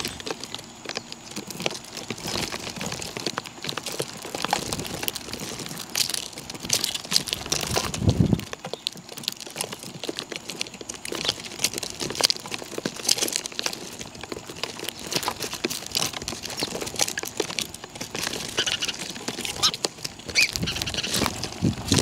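Birds pecking and scuffling at scattered feed: a busy patter of small clicks and rustles, with a few low thumps, one about eight seconds in and another near the end.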